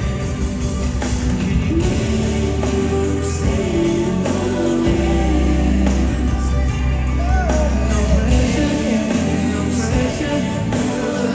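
Live R&B vocal group singing over a full band, amplified through the arena PA: a male lead voice with long held notes and a sliding run about seven seconds in, over a steady heavy bass.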